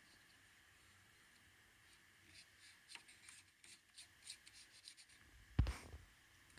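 Faint handling noises on a car radio's plastic faceplate: scattered light clicks and rubbing, then one dull thump near the end.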